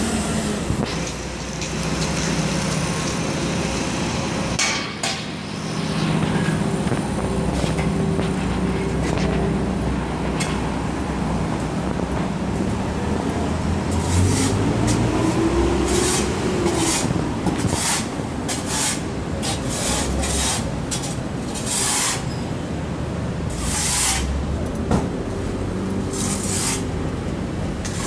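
Engines of road-repair machinery and trucks running with a steady drone, one of them briefly rising and falling in pitch. From about halfway on they are joined by a string of short, sharp bursts at irregular intervals.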